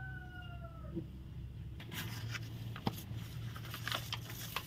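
Crackling and rustling of large sheets of brown kraft pattern paper being picked up and spread out by hand, starting about two seconds in. In the first second, a short animal call that falls slightly in pitch.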